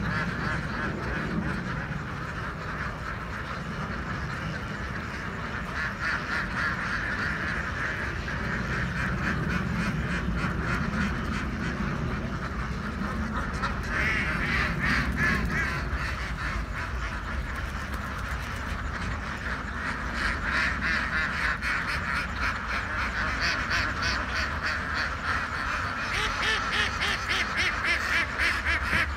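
A large flock of domestic ducks quacking continuously, many overlapping calls at once, swelling louder about halfway through and again near the end.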